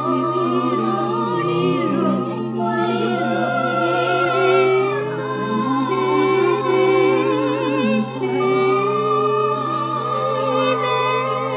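Several singing voices with vibrato, layered and overlapping in sustained, wavering notes over a steady low drone.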